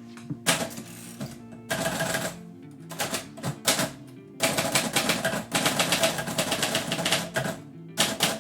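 Manual typewriter typed on in quick bursts of key strikes, the longest run about three seconds, its sticky B and F keys just oiled and now working better. Guitar music plays underneath.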